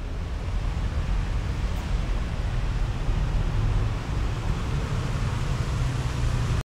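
Steady rushing of water from an artificial waterfall, a loud even wash with a heavy low rumble. It swells up over the first second and cuts off abruptly near the end.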